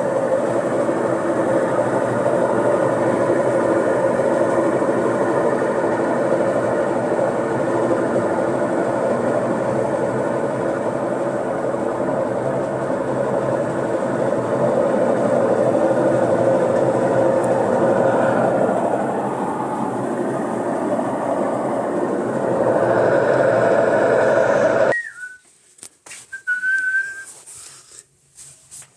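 Brastemp BWL11 washing machine making a loud, steady mechanical noise in the spin cycle, a noise diagnosed as a faulty gearbox (transmission). The noise cuts off suddenly about 25 seconds in, and a few short high whistle-like tones follow near the end.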